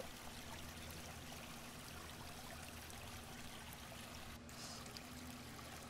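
A faint, steady rushing noise like running water, with a low hum under it. It cuts out briefly about four and a half seconds in.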